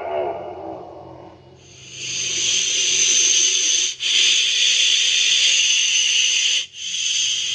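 A loud, breathy hiss, presented as a recreated Tyrannosaurus rex call, starts about a second and a half in after a fading tone. It holds steady, with two brief breaks.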